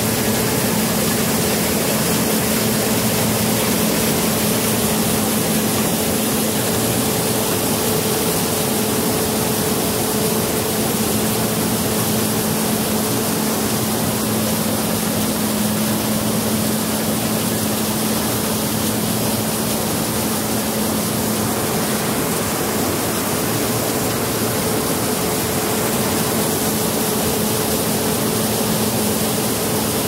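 John Deere 9500 combine with a 920 header running while harvesting soybeans: a loud, steady machine noise with a constant low hum that does not change.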